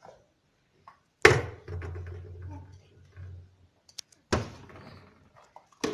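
Three sharp knocks of kitchen containers and utensils being handled and set down: one about a second in, one a little past four seconds and one near the end.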